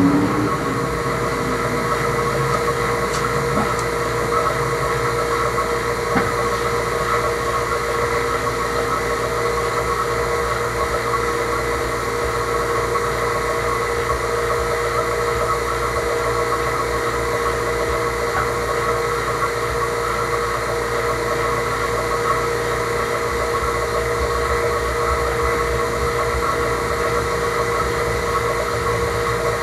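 HVAC vacuum pump running with a steady hum, pulling vacuum through a mason-jar catch chamber on a brake bleeder line.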